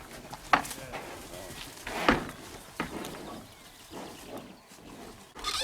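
Scattered footfalls on open ground with a few sharp knocks, about three, while the bulls are driven toward the corral.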